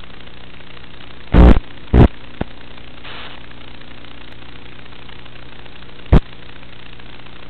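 Steady electrical hum with a buzz, the empty audio track of an analog FPV goggle recorder that captures no real sound, broken by three loud static pops: about a second and a half in, at two seconds, and about six seconds in.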